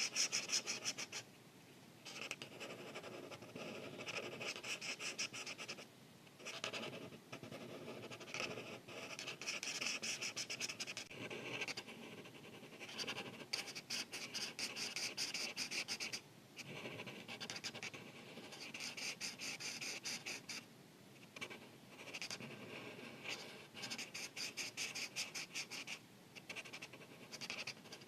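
Art marker scratching back and forth across paper in quick, rapid strokes, in runs broken by short pauses every few seconds.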